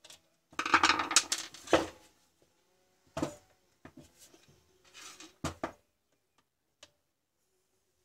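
Screwdrivers and the angle grinder's housing being handled during disassembly: a quick run of knocks and rattles in the first two seconds, then a few separate clacks.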